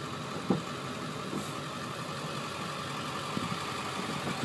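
2001 Ford F-350's 7.3-liter Power Stroke turbo-diesel V8 idling steadily, heard from inside the cab, running on diesel alone with its natural-gas conversion not yet switched over. A single sharp knock sounds about half a second in.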